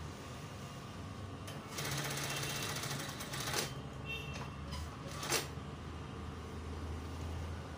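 Industrial sewing machine stitching fabric: a steady motor hum, with a run of stitching from about two seconds in and two sharp clicks, at about three and a half and five seconds.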